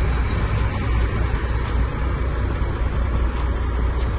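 Truck's diesel engine running steadily with road noise, heard from inside the cab while driving.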